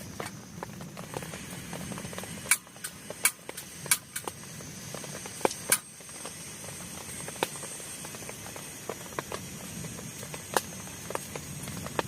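Rain falling on a plastic tarp over a tent: a steady hiss with irregular sharp taps of heavier drops, the loudest clustered between about two and six seconds in and another near the end.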